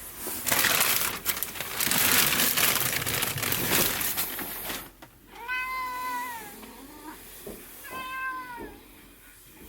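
A cat meowing twice, two drawn-out calls that hold their pitch and then drop at the end. Before them comes several seconds of loud rustling or handling noise.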